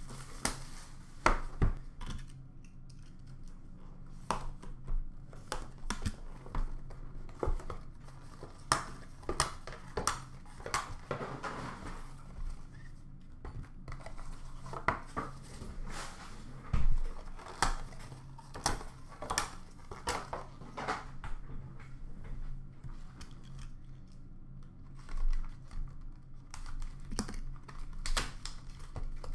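Cardboard trading-card packaging being torn open and handled: irregular rustling, tearing and crinkling with scattered taps and knocks as small boxes and cards are set down, over a low steady hum.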